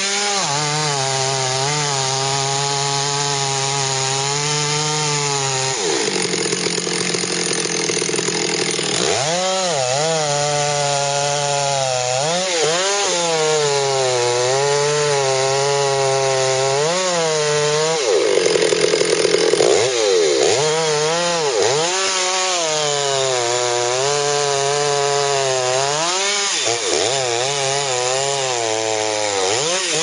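Chainsaw cutting into the trunk of a giant old-growth Sitka spruce, its engine running under load with the pitch wavering up and down. It turns rougher for a few seconds a little after a quarter of the way in and again past the middle, where it briefly gets louder.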